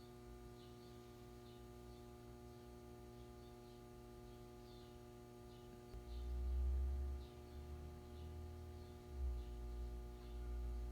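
Steady electrical mains hum, with faint small ticks. From about six seconds in, low rumbles come and go.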